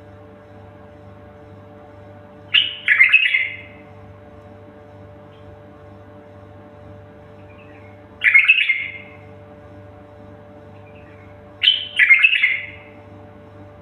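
A bird giving three short, harsh calls a few seconds apart, each a quick double note, over a steady low hum.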